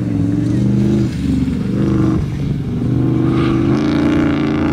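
Car engine running at high revs, its pitch rising and falling in steps.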